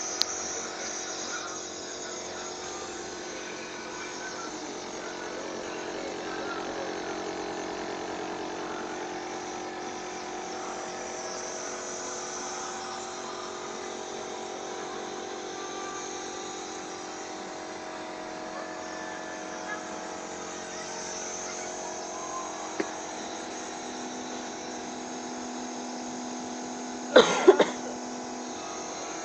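Nebulizer compressor running with a steady electric hum. Near the end, a short loud sound breaks in over it.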